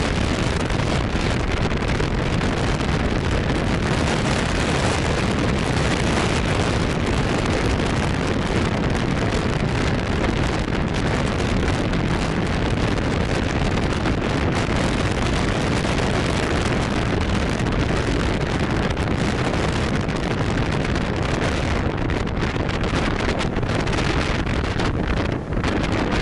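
Steady wind rushing over the microphone of a camera on a moving motorbike, with road and engine noise mixed in; it dips briefly near the end.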